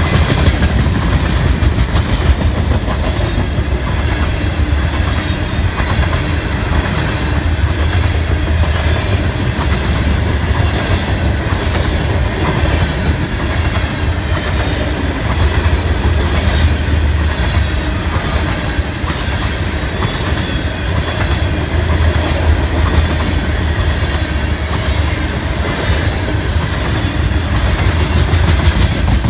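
Loaded coal hopper cars of a freight train rolling past at close range: a steady low rumble with the regular clickety-clack of wheels over the rail joints.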